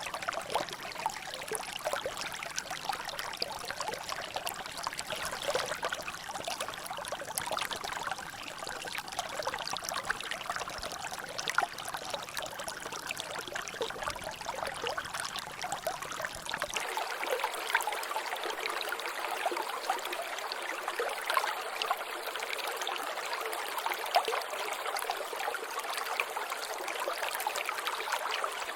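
Water trickling and dripping in a small natural drainage, a steady patter of many small drops and splashes. About two-thirds of the way through, the low rumble beneath it cuts out suddenly, leaving only the lighter splashing.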